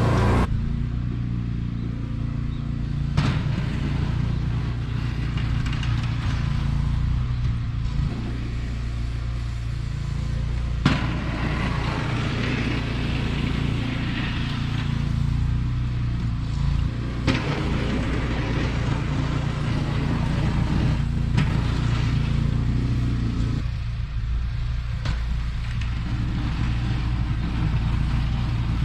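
John Deere F911 zero-turn mower's engine running steadily under load, with a few sharp knocks along the way.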